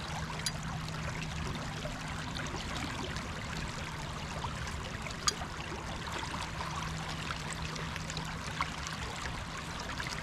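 Creek water running steadily past the bank, with three short metallic clicks from a steel body-grip trap and its chain being handled.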